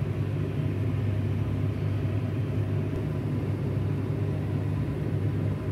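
A steady low hum with a rumbly noise over it, unchanging throughout.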